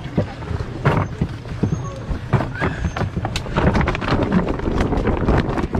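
Wet handling noise as bass are moved from a plastic laundry basket into a mesh weigh-in bag: irregular knocks and clatters on plastic, rustling of the bag and dripping, splashing water.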